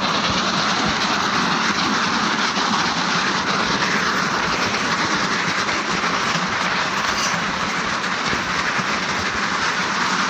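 Several car tyres dragged on ropes over a dirt and gravel track: a steady, even scraping noise.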